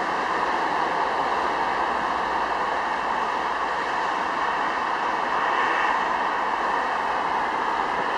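A Bombardier Dash 8 Q400's Pratt & Whitney PW150A turboprops heard from a distance as the airliner rolls out after landing. It is a steady rushing noise with faint, high, even whining tones on top.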